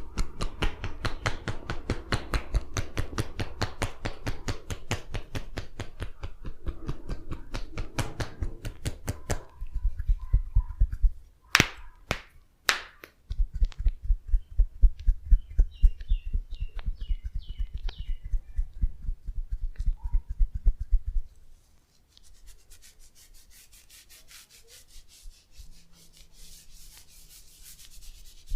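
Massage tapping: hands patting and slapping on the body in rapid, even strokes, in several long runs. Two sharp snaps come in the middle, and near the end there is faint rubbing.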